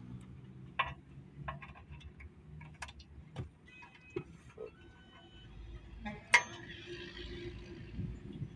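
Scattered metallic clicks and clinks of brake shoes and their fittings being handled and fitted, with one sharp, loud clack about six seconds in.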